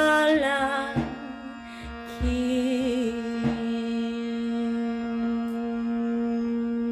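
A voice chanting the word 'Allah' as a devotional mantra, with a wavering, ornamented line for about the first second, then settling into one long held note to the end. Three low thumps fall in the first few seconds.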